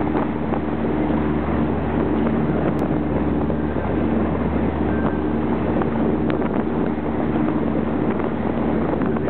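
A motorboat's engine running with a steady hum, over the rush of water and wind on the microphone.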